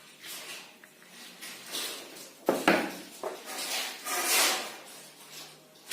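Irregular handling and clattering of small objects, with a sharp knock about two and a half seconds in and rustling scrapes around it.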